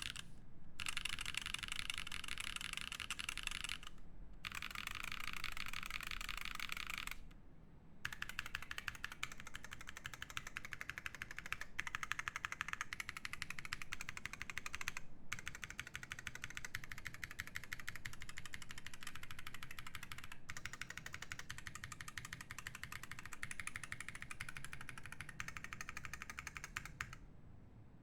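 Fast, continuous typing on a Haus65 mechanical keyboard with unlubed Lumia switches in an aluminium plate and GMK keycaps, a dense stream of key clacks. It breaks off in brief pauses about four seconds in, around seven seconds in, and near the end.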